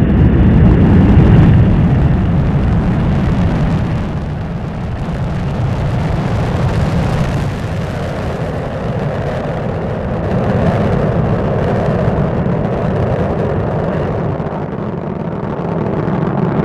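Space Shuttle launch: a loud, continuous rocket roar from the main engines and solid rocket boosters, heavy in the bass. It is loudest in the first couple of seconds and eases slightly as the vehicle climbs away.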